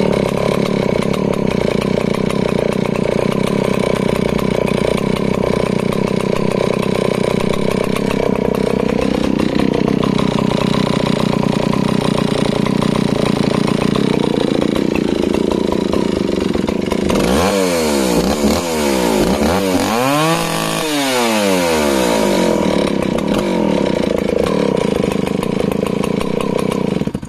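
Stihl 041AV 61cc long-stroke two-stroke chainsaw from the mid-1960s running at a steady, thumping idle, set on the low side. About two-thirds through it is blipped straight up to peak revs and straight back down a few times, then settles back to idle. It stops abruptly at the very end.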